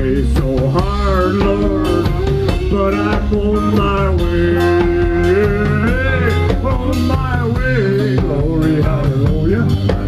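A live rock band playing: drum kit, electric bass and guitar, with a lead melody whose notes bend and slide in pitch over a steady bass line.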